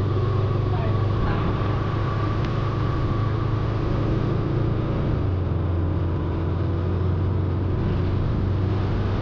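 Motorcycle engine running at a steady speed under a constant rushing noise, its low hum unchanging throughout.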